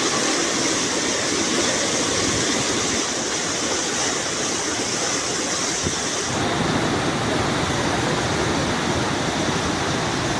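Floodwater rushing in a steady, loud stream of noise. About six seconds in, the high hiss falls away and the lower rush grows heavier.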